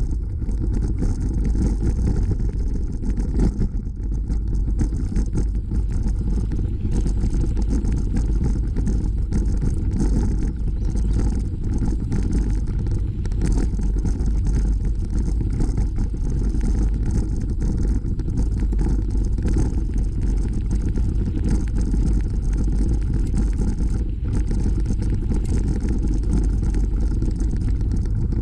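Steady low rumble of riding a bicycle on a dirt trail: wind buffeting the camera microphone along with the tyres rolling over the packed earth, unbroken and without any sudden events.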